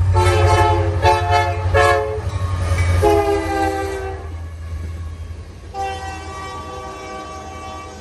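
CN freight locomotives passing close by while the air horn sounds a series of blasts: three short ones in the first two seconds, a longer one about three seconds in, and another long blast starting near six seconds in. Under the horn, a deep locomotive engine rumble fades after the first few seconds as the engines go by and the tank cars follow.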